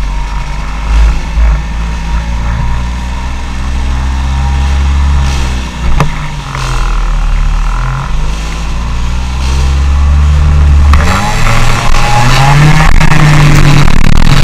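Car engine running as the car drives slowly, its pitch rising and falling with the throttle, over a heavy low rumble on the microphone mounted outside the car. The sound grows louder and busier about eleven seconds in.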